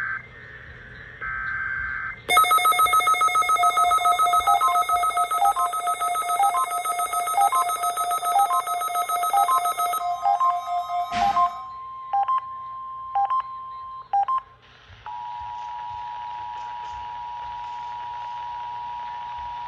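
Emergency Alert System tones on NOAA Weather Radio: the last of the SAME header's screechy data bursts, then about two seconds in a weather radio receiver's loud buzzing alarm with a repeating beep pattern for about eight seconds, a few scattered beeps, and from about halfway the steady two-tone EAS attention signal.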